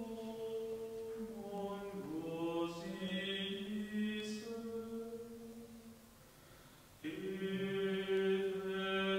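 Unaccompanied sung chant in long held notes that step between pitches. The phrase fades out about two-thirds of the way through, and a new phrase starts a second later.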